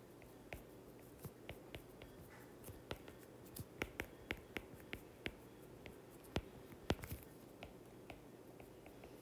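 Stylus tip tapping on a tablet's glass screen during handwriting: irregular faint clicks, with a couple of louder ones about six and a half and seven seconds in.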